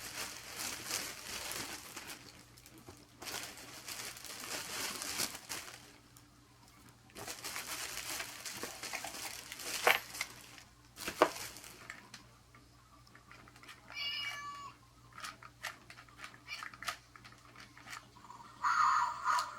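Wrapping paper crinkling and rustling in bursts through the first two-thirds, then a cat meowing twice, briefly, near the end.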